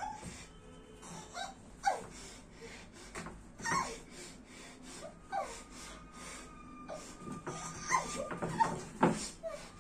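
A woman's muffled whimpers and moans through a cloth gag: short, strained cries that slide up and down in pitch. A few sharper knocks come near the end as she struggles in the chair.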